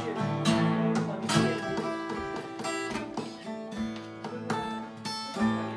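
Two acoustic guitars, one of them a 1964 Gibson, played together: strummed chords with ringing notes in a steady rhythm.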